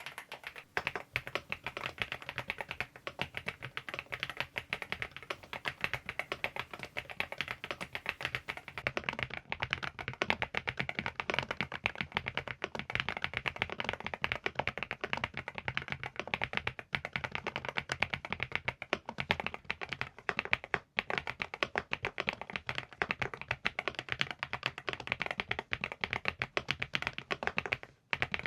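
Preflow AK74 PRO full-size mechanical keyboard being typed on fast and continuously: a dense, uneven patter of keystroke clacks, briefly stopping near the end.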